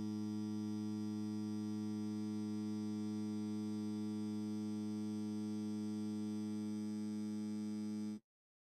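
A steady electronic tone with a full set of overtones, held on one low pitch, which cuts off abruptly about eight seconds in.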